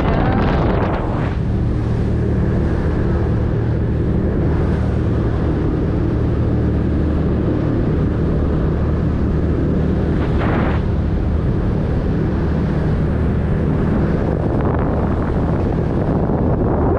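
The boat's engines are running at a steady cruise, a low even drone, with wind buffeting the microphone. There is a brief rush of noise about ten seconds in.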